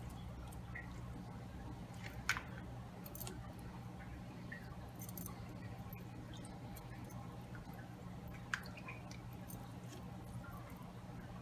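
Whole peeled potatoes set by hand into a pan of liquid, with small wet splashes and scattered clicks, and two sharp knocks, about two seconds in and again later. A steady low hum runs underneath.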